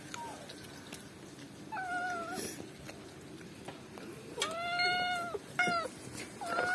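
A cat meowing: four separate meows, the longest about five seconds in and a short one just after it, with another starting near the end.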